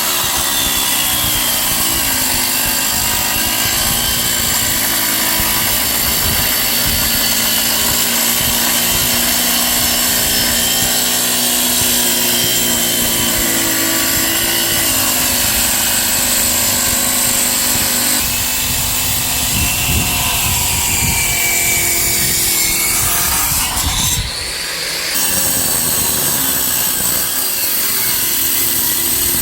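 Handheld electric power tool running continuously under load against stone, its motor pitch wavering as the pressure changes, with a brief easing-off about 24 seconds in.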